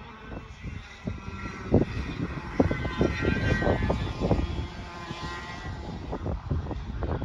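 Two-stroke racing kart engine running at high revs on a lap, its whine growing louder and then fading as it passes. Irregular low rumbling from wind buffeting the microphone.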